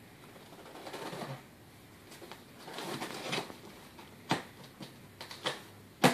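Handling noise: soft rustling twice, then several sharp clicks and taps, the loudest near the end.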